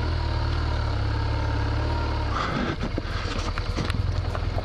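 BMW R1200GS boxer-twin engine running at low speed as the motorcycle picks its way over a rocky dirt trail. About two and a half seconds in, the steady engine note breaks up and knocks and clatters of the tyres and suspension over loose rocks come through.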